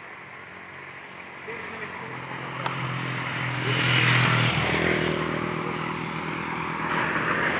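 Motor vehicles passing on the road: engine hum and tyre hiss swell to a peak about four seconds in and ease off, then a second vehicle draws near at the end.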